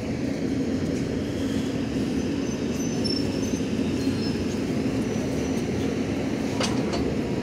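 VL82M dual-system electric locomotive creeping up to a passenger coach to couple, running with a steady low hum. A few light metallic clicks come near the end.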